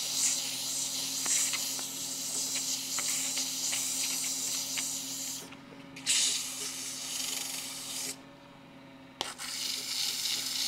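120-grit sandpaper hissing against a small wooden turning spinning on a wood lathe, over the lathe's steady motor hum. The hiss stops twice, briefly about halfway through and for about a second near the end, as the paper comes off the wood.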